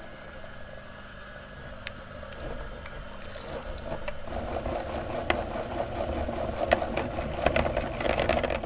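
Electric meat grinder running, its motor humming steadily while it grinds soap; from about halfway through, a crackling with sharp clicks grows louder as the material is forced through.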